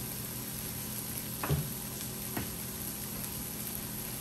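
Sautéing onions, peppers and tomatoes sizzling steadily in butter in a frying pan, with two light knocks about a second apart near the middle.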